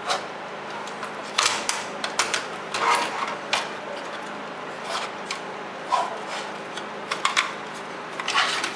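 Irregular sharp clicks, taps and light scrapes of a Lifepak 20 defibrillator's circuit boards and sheet-metal chassis being handled and fitted together by hand, over a steady hiss.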